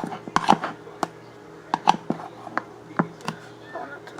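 Slime being squeezed and pressed by hand, giving a string of sharp wet clicks and pops at an uneven pace.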